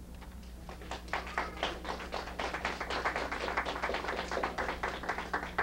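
Audience applauding, a dense patter of separate hand claps that builds about a second in and keeps going.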